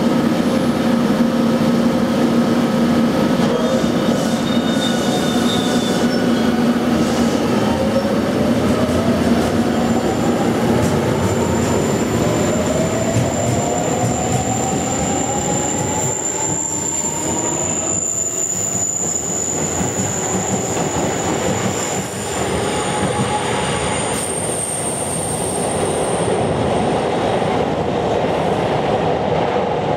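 JR Kyushu 813 series electric multiple unit pulling out of the platform and accelerating past. Its inverter-driven traction motors give a whine that rises in pitch as it gathers speed, over the running noise of the wheels on the rails. A thin high squeal comes in through the middle as the cars pass.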